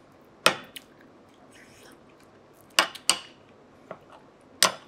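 Metal spoon clinking and scraping against a small gratin dish while stirring through a scallop gratin: a handful of sharp clinks, the loudest about half a second in, a pair near three seconds and one near the end.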